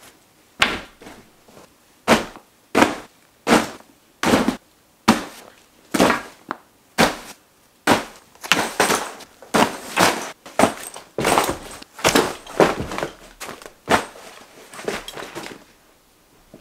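Vertx backpacks and sling bags thrown one after another onto a pile on a bed: about twenty soft thuds with a rustle of fabric, landing faster and closer together in the second half.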